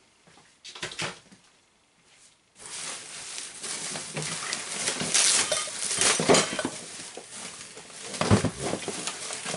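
Hands rummaging through crumpled packing material in a cardboard box: a dense crinkling and rustling, starting about two and a half seconds in, with light knocks of parts shifting in the box.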